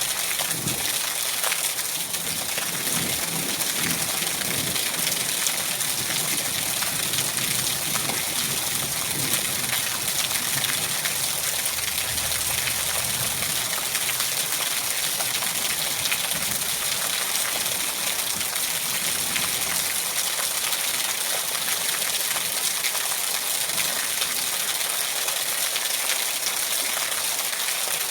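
Steady rain falling: an even hiss of many drops with fine ticks of individual drops.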